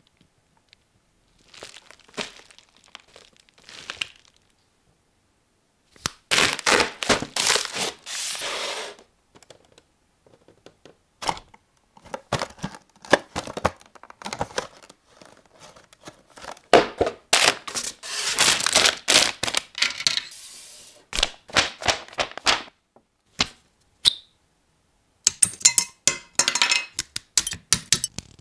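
Unboxing a plastic model kit: packaging is torn and crinkled in two long noisy stretches, with sharp clicks and taps from the cardboard box and plastic parts between them and quick clicks near the end.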